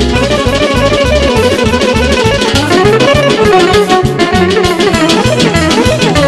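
Music with a steady bass beat under a wavering melody line.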